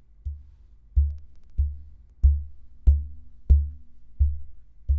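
Fingertips tapping on a Neumann U87 Ai large-diaphragm condenser microphone, heard through the mic itself: about eight even low thuds, one every two-thirds of a second. The taps test the mic for resonant frequencies.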